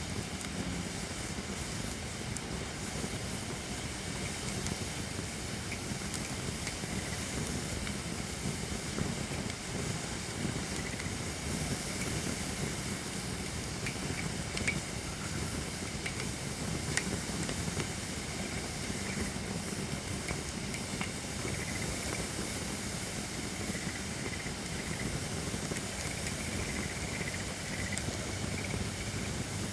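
Holly-wood campfire burning with a steady hiss, with a few sharp crackling pops scattered through.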